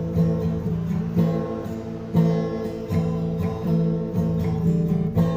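Acoustic guitar strumming chords in a steady rhythm, with a strong stroke about once a second.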